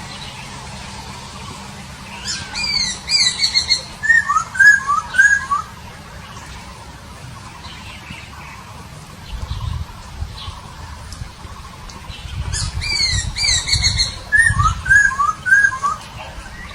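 A poksay papua singing two near-identical song phrases about ten seconds apart. Each phrase is a quick run of downward-sliding high notes followed by three short rising whistles. There is a low rumble in between.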